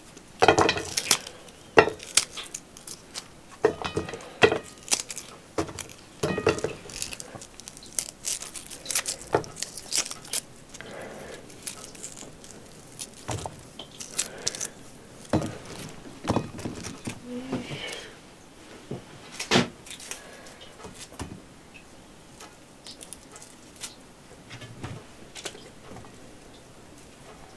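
Raw onion rings being pulled apart by hand: crisp little snaps and crackles, many in quick succession in the first ten seconds, then fewer and further apart.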